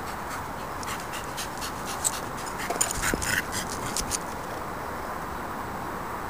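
A dog scuffling about with an old moped tyre over her head on tarmac: a rapid run of scratchy clicks and scrapes from about a second in until about four seconds, over a steady background hiss.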